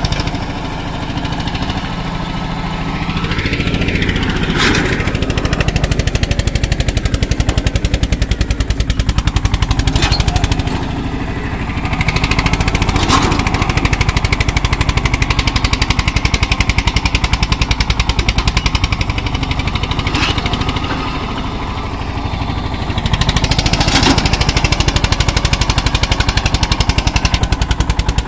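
Eicher 242 tractor engine running under load while it pulls a disc harrow, with a rapid, even exhaust beat. The beat eases off briefly three times and then picks up again.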